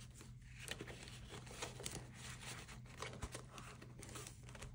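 Faint rustling and crinkling of paper banknotes being slid into a clear plastic binder pouch and the pouch being handled shut, with scattered light taps.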